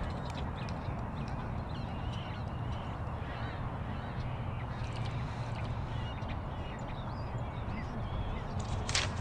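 Outdoor ambience: a steady low hum with small birds chirping now and then, and a brief rustle near the end.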